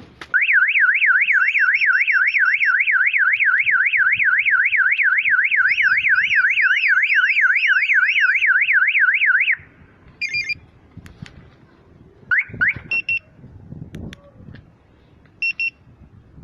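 StarLine B9 car alarm siren wailing in a fast up-and-down sweep, about three times a second, for about nine seconds, then cutting off. A few short beeps and a brief chirp follow.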